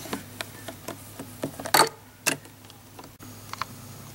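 Small plastic toy figurine being handled and set down on miniature toy furniture: scattered light clicks and taps, with a louder rustle and a sharp tap about two seconds in, over a faint steady hum.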